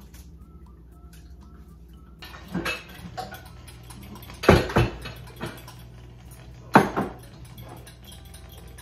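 A few separate clinks and knocks of dishes and utensils being handled on a kitchen counter. The sharpest are a pair about halfway through and another a couple of seconds later.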